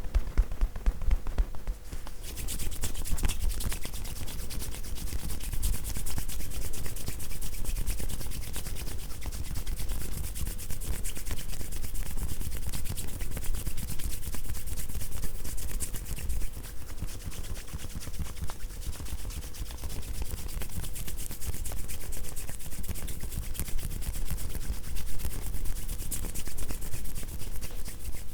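Massage therapist's hands rubbing briskly and continuously over the client, a dense fast brushing hiss. For the first two seconds, rapid rhythmic tapotement taps come before the rubbing starts.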